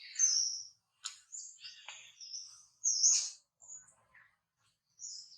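A string of short, high-pitched animal chirps and squeaks, several in quick succession with brief pauses; the loudest come near the start and about three seconds in.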